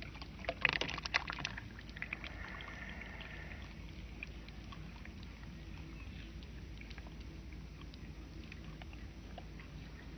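Water poured from a plastic cup onto potting soil in a plastic tub: a short spatter of splashing and crackling about half a second in, then a faint trickle that dies away, over a steady low hum.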